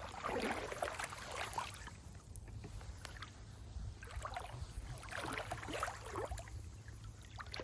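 Water sloshing and splashing in irregular swishes, with a low rumble of wind underneath.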